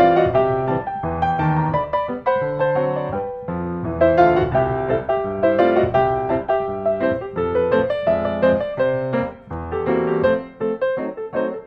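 Background piano music: a melody of struck notes over a low accompaniment.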